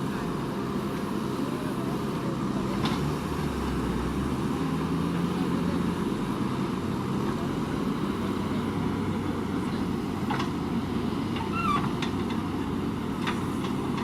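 Diesel engine of a JCB 3DX backhoe loader running steadily at work, with a few faint knocks.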